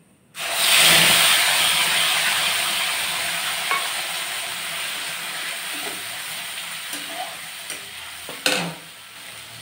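Wet ground masala paste poured into hot mustard oil in an iron kadhai, hitting with a sudden loud sizzle that slowly dies down as the paste fries. A metal spatula stirs and scrapes the pan, with a sharp knock near the end.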